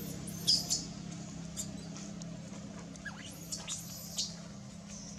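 Infant long-tailed macaque giving a series of short, very high-pitched distress squeaks, the loudest about half a second in, while its mother grips and handles it roughly.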